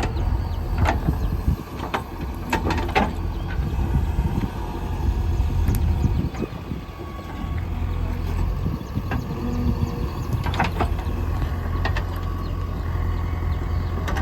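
JCB 3DX backhoe loader's diesel engine running steadily, with a few scattered sharp knocks, a cluster early and a pair around ten to eleven seconds in.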